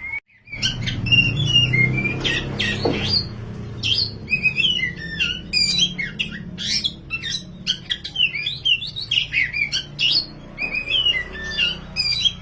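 Oriental magpie-robin (kacer) in full song: a fast, unbroken run of varied whistles and chirps, starting abruptly about half a second in. A steady low hum lies underneath.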